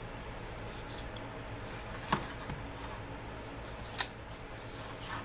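Quiet handling of a revolver during bore brushing: faint rubbing with two short, sharp light clicks, about two seconds and four seconds in.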